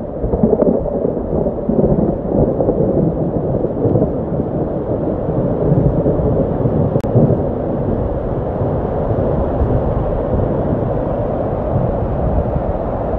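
Rainwater runoff rushing and splashing down over rocks in a steep hillside channel, close to the microphone: a steady, loud, low rushing without a break.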